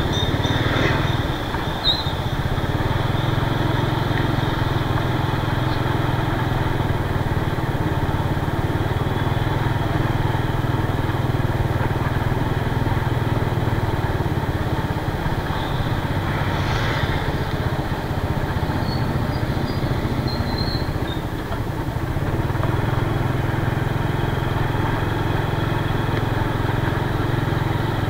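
Small motor scooter engine running steadily as the scooter is ridden, a continuous low hum with road noise.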